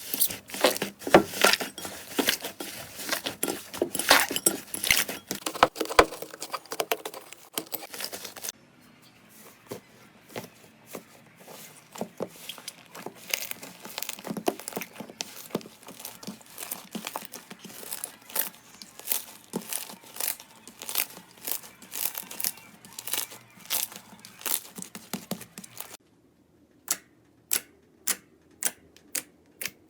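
Slime being squeezed and worked by hand, with a dense crackling of small pops and clicks. The crackling thins out about a third of the way in, and near the end gives way to sharp, evenly spaced clicks about two a second.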